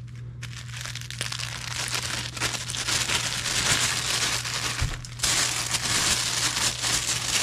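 Tissue paper crinkling and rustling as a wrapped package is unfolded by hand, with a brief lull about five seconds in.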